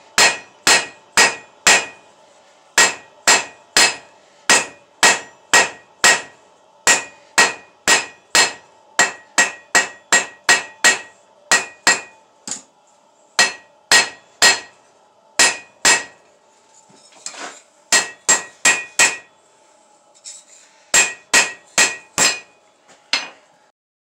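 Hand hammer striking a red-hot steel bar on an anvil, about two blows a second, each with a metallic ring from the anvil. The rhythm breaks off for a few short pauses and stops shortly before the end.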